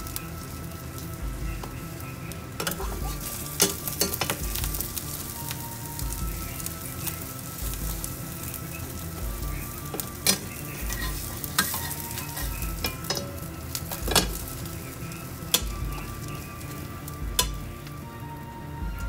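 A slice of bread frying in hot fat in a pan, with a steady sizzle. A metal spatula scrapes and clicks against the pan several times as the bread is turned and pressed.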